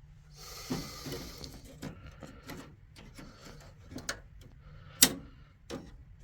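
Clicks, knocks and a short scraping rattle of parts being handled inside a server tower's metal case, with one sharp, loud click about five seconds in.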